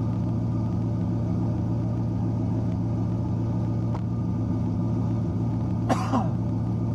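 Swapped 5.3-litre LS V8 in a Ford Ranger idling steadily, heard from inside the cab. A brief sound falling in pitch cuts in about six seconds in.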